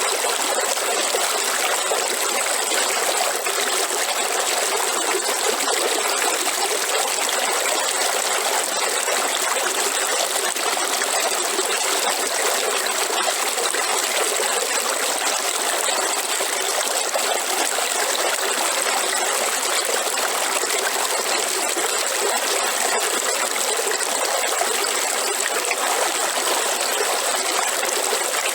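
River water flowing: a steady, unbroken rush and trickle.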